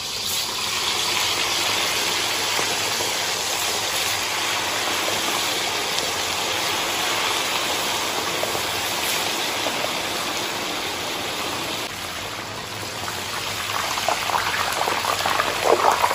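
Chicken pieces deep-frying in hot oil in an iron wok: a steady, loud sizzle. Near the end the pieces are lifted out in a perforated strainer ladle, and the oil pouring back through it into the wok crackles louder.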